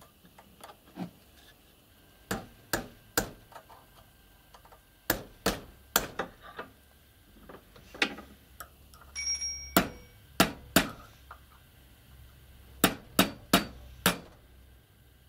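A hammer taps a pin punch, metal on metal, to drive the cross pin that holds the firing-pin cylinder and spring cap out of the side of a Stirling 14P .22 rifle bolt. About fifteen sharp, separate taps come in irregular groups of two or three, and the hardest taps fall near the end.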